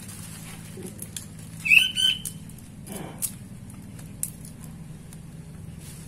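Small clicks and rustles of hands trimming the legs and wings off grasshoppers, with a short high bird call, the loudest sound, about two seconds in.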